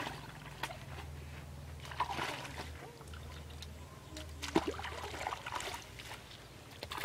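A hoe chopping into wet mud and water hyacinth in a shallow pond, with splashing and sloshing of muddy water. There are a few sharp strikes, the loudest about four and a half seconds in.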